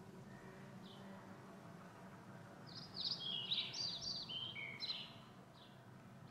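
A songbird singing: a rapid burst of high chirps and downward-slurred whistles in the middle, with single short chirps a little before and after, over a faint steady low hum.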